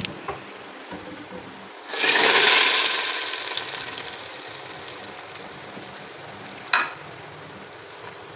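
Hot tadka of oil, fried garlic and onion poured onto cooked whole masoor dal: a sudden loud sizzle about two seconds in that slowly fades over the next few seconds. A single sharp knock near the end.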